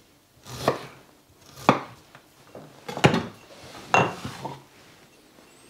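A kitchen knife slicing fresh ginger on a cutting board: about five sharp knocks of the blade on the board, roughly a second apart.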